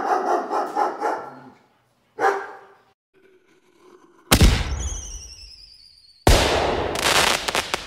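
A dog barking: a quick run of barks, then a single bark. Then two sudden loud booms, each fading slowly; a high tone slides gently downward after the first, and a short crackle of sharp pops follows the second.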